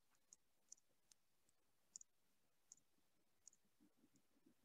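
Near silence: room tone with about six faint, short clicks at irregular intervals.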